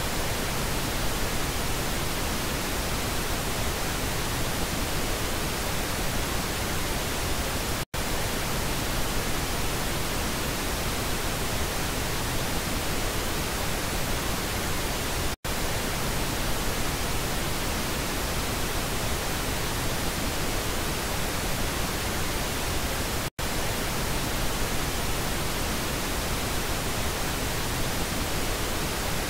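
Pink noise test signal: a steady, even hiss across the whole range, played in stretches of about eight seconds with brief silent breaks between them, alternating between the left and right speaker channels.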